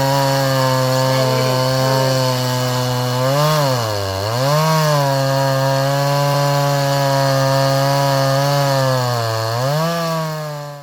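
Two-stroke chainsaw with a freshly sharpened chain running at high revs and cutting wood. Its engine note dips twice as the chain bites into the log and then recovers. It stops abruptly near the end. The sharp chain is throwing large curled chips instead of fine powdery sawdust.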